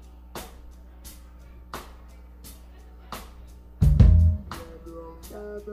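Live rock band playing: drum strokes about every three quarters of a second, a loud accented hit with bass about four seconds in, then held guitar and keyboard notes.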